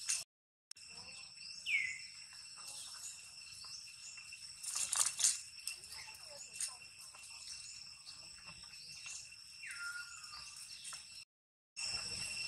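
Steady high-pitched drone of insects, with two short falling whistle-like calls and a brief rustle near the middle. The sound drops out for a moment just after the start and again near the end.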